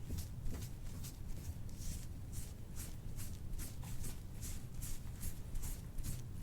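Small metal scraping tool drawn repeatedly over a patient's skin in soft-tissue scraping, a rhythm of short brushing strokes about three a second.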